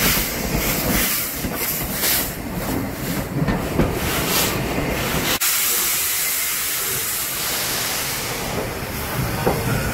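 Southern Railway Schools class steam locomotive No. 926 letting off steam: a hiss that pulses unevenly for the first five seconds, then, after an abrupt break about five and a half seconds in, a steady hiss.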